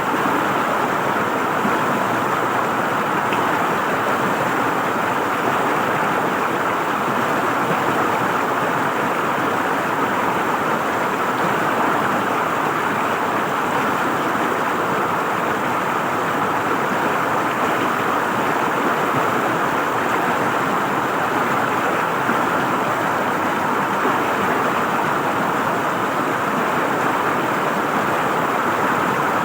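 River water flowing and gurgling over rocks, a steady rush with no pauses.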